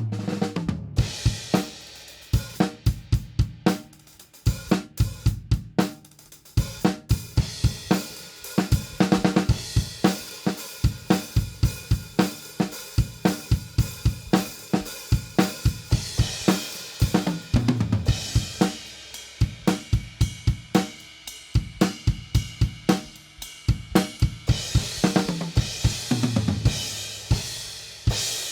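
Drum kit groove played on Aisen Traditional Series B20 bronze cymbals, with snare and bass drum keeping a steady rhythm. Crash accents open the groove and recur every several seconds, and it ends on a crash left ringing and fading out.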